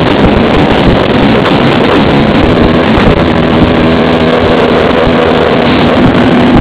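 Car engine held at high revs while the car spins donuts with its wheels spinning, the loud recording overloaded and mixed with wind noise on the microphone.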